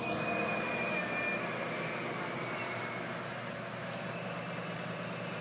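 Mobile crane's diesel engine running steadily, with a thin high whine that fades out about halfway through.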